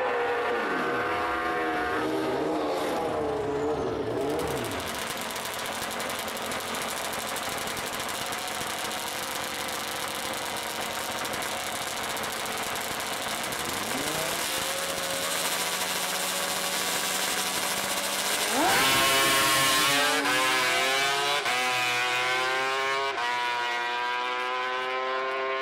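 Two-stroke drag-racing motorcycles running down the strip, their engine pitch gliding and fading in the first few seconds. Later a single two-stroke dragbike holds a steady note at the line, then launches hard about 19 s in, its loud engine note climbing in pitch with two quick shifts.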